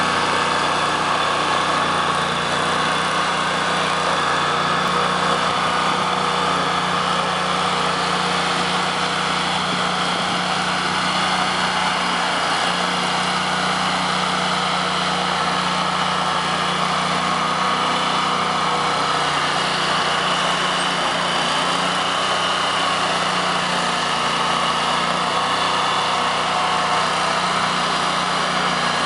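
2010 Rayco RG1625A walk-behind stump grinder's gasoline engine running steadily as the machine is driven across pavement.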